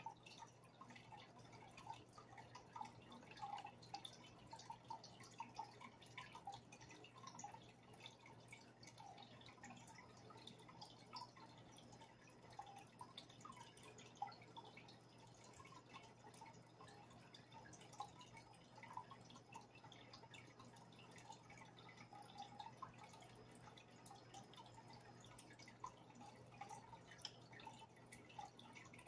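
Faint aquarium water sounds: many small, irregular drips and bubble pops over a low, steady hum.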